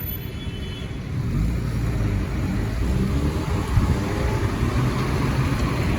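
A car's engine and road noise, growing louder about a second in as the car accelerates.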